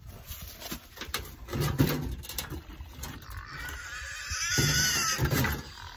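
Rubber water bowls knocked against a barn wall to break the ice out of them: a series of sharp knocks. An animal calls twice over them, briefly about two seconds in and longer and louder near the end.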